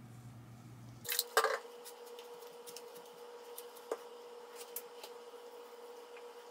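Hair being brushed and handled: two loud brushy strokes through wet, gelled curls about a second in, then soft scattered rustles and small clicks over a faint steady hum.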